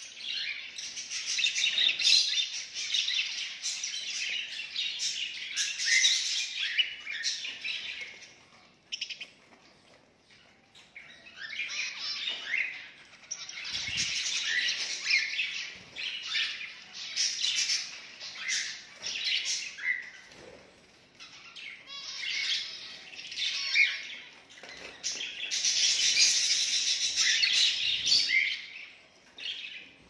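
A group of caged zebra finches chirping and calling together in busy bursts, with short lulls between them.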